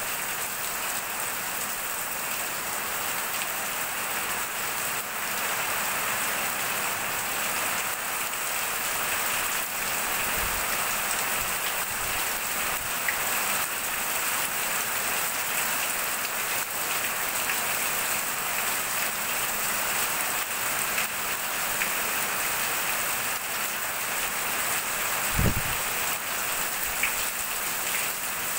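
Heavy rain falling steadily, splashing on the ground and pouring off a roof eave in streams. There are a few brief low knocks, the loudest near the end.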